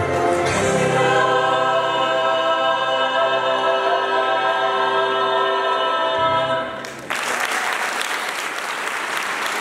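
Mixed choir of men's and women's voices holding a final sustained chord, which fades out about seven seconds in. Audience applause breaks out right after and continues.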